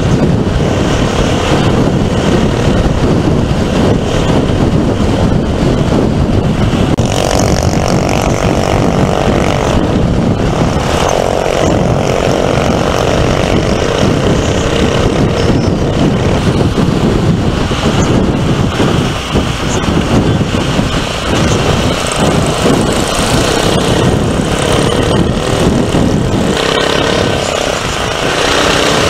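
Wind rushing over the microphone of a camera on a moving Royal Enfield motorcycle, with the bike's engine running at steady highway speed underneath. A humming tone comes and goes between about seven and twelve seconds in.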